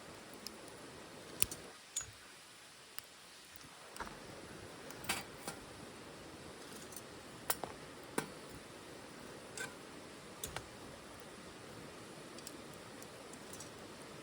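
Wood fire burning in a OneTigris titanium wood stove: irregular sharp crackles and pops over a steady low hiss.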